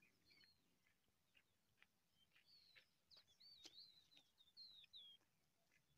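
Faint bird calls: a few short whistled phrases of rising and falling notes, mostly in the second half, over near silence.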